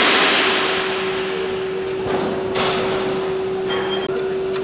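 Workshop sounds: a steady machine hum, with a sudden rush of hiss at the start that fades over about a second, then a few scattered knocks and short rubbing strokes.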